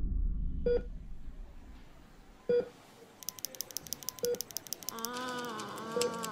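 Deep rumble of the asteroid impact's blast dying away, overlaid by a hospital heart monitor beeping about every two seconds. From about halfway a faint rapid ticking joins, and near the end a voice hums a steady note.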